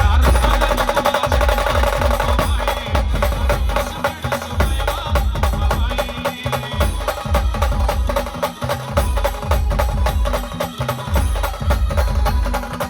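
Maharashtrian brass band playing an instrumental passage: horns carry a sustained melody over a fast, dense beat of drums and sharp percussion hits, with a heavy bass drum.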